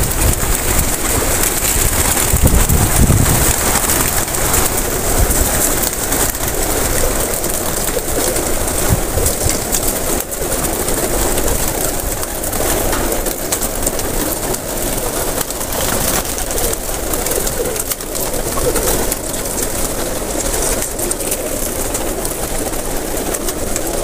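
A loft full of domestic pigeons cooing together in a dense, continuous chorus.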